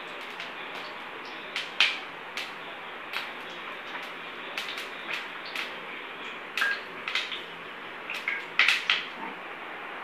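Steady hiss from a two-burner gas stove, with irregular sharp clicks and taps scattered through it, louder in a cluster near the end; a steel kadai of refined oil is heating on the front burner.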